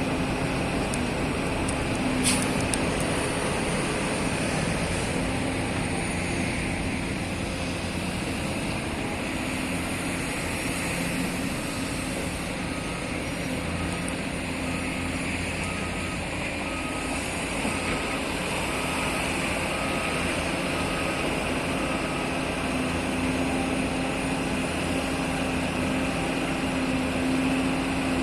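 Heavy diesel machinery of an excavator loading sand into a dump truck, running steadily. In the middle stretch a reversing alarm beeps about a dozen times, evenly spaced at roughly one and a half beeps a second.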